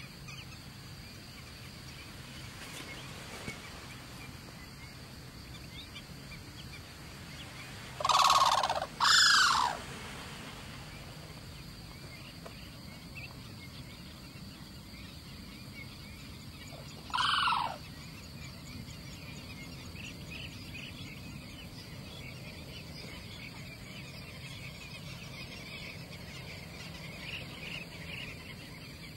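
Crane calling: two loud, short calls about a second apart, then one more call about eight seconds later, over a steady outdoor background. Faint small chirps come in near the end.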